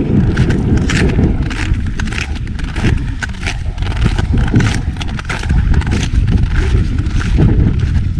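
Footsteps crunching on snow at a steady walking pace, about two steps a second, over heavy wind rumble on the microphone.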